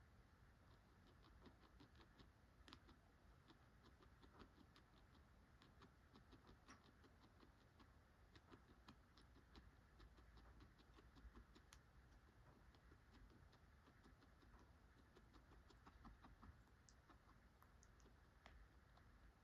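Guinea pig chewing dry pellets: a faint, rapid run of crunching clicks.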